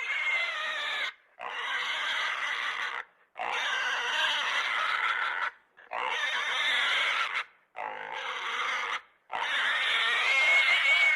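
Pigs grunting: about six separate rough calls, each a second or two long, with short pauses between them.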